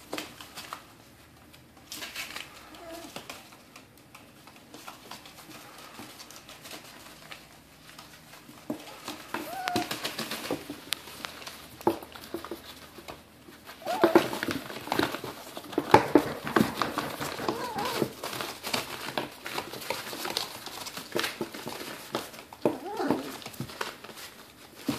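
Miniature dachshund puppies scuffling and play-fighting on newspaper in a cardboard box: rustling, crinkling paper and scratching paws, with short high-pitched puppy yips, busiest from about halfway through.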